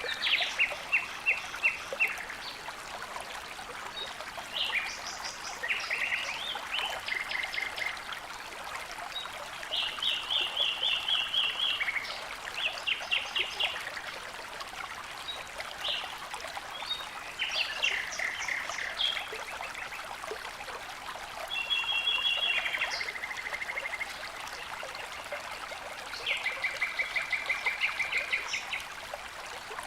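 Songbirds singing in short, rapid trills of repeated notes and scattered chirps every few seconds, over the steady rush of running water.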